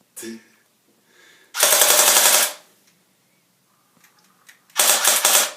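Two loud bursts of rapid automatic gunfire, the first about a second long and the second shorter, near the end.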